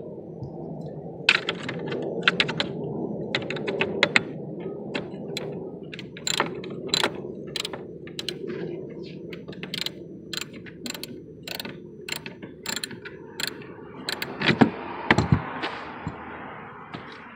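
Ratchet wrench clicking in irregular runs of short, sharp clicks, with a few louder knocks of tool on metal near the end, over a steady low rumble.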